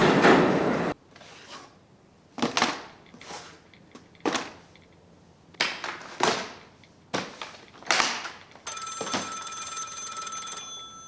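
A telephone rings steadily for about two seconds near the end. Several short, sharp sounds come before it.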